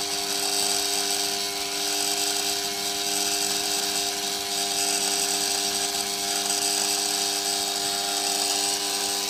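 A steady machine hum with a hiss over it and several fixed tones, unchanging in level.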